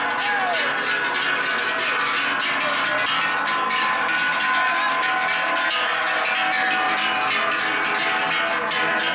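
Many large cowbells on a herd of cows walking past, clanging and ringing together continuously as the cows walk.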